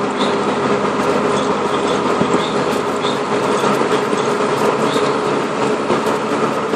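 Steady road noise inside a moving car's cabin at highway speed: a continuous rumble of tyres and engine with a faint steady hum and scattered light ticks.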